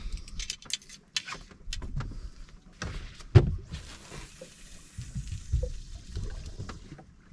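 Spinning rod being handled and cast on a small boat: scattered clicks and knocks, one loud thump about three and a half seconds in, then an even hiss lasting about three seconds.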